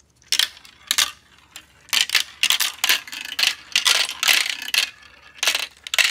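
Marbles clattering down a plastic marble run and dropping into its catch tray: a long run of sharp hard clicks and clacks in quick clusters, thickest in the middle.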